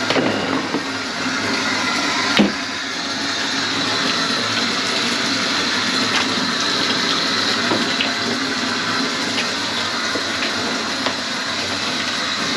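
Kitchen faucet running steadily into a stainless steel sink, with one sharp knock about two and a half seconds in.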